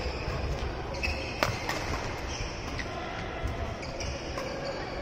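Badminton rally: several sharp racket-on-shuttlecock hits, the loudest about a second and a half in, with footfalls on the wooden gym floor and the echo of a large hall.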